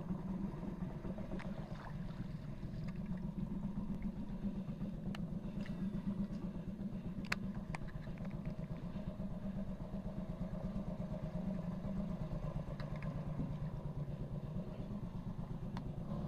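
Small boat engine running steadily, with a few faint sharp clicks around the middle.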